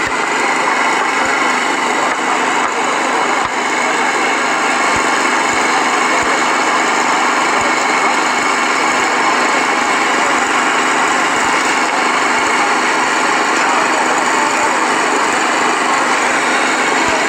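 Heavy machine's engine running steadily, with a crowd's voices underneath.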